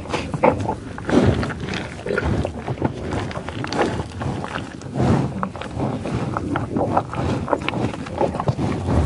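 A buffalo sniffing and eating in tall grass: irregular breathy sniffs about every second, mixed with many short crackles of grass being cropped and chewed.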